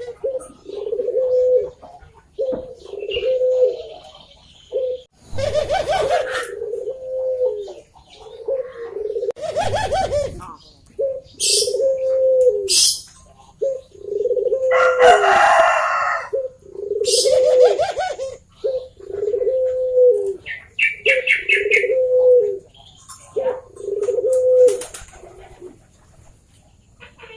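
Barbary dove (burung puter) cooing over and over, each coo a short call that rises and falls, about one every one and a half seconds. A few short noisy rustles and high chirps come between the coos.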